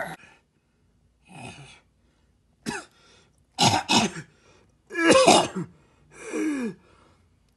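A person coughing and clearing their throat in a string of short outbursts, with one longer, pitch-sliding groan about five seconds in. These are mock death throes voiced for a Yoda puppet.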